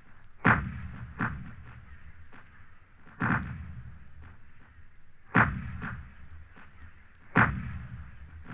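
Heavy guns firing in a battle recording: four loud booms roughly two seconds apart, each trailing off in a low rumble, with lighter shots in between.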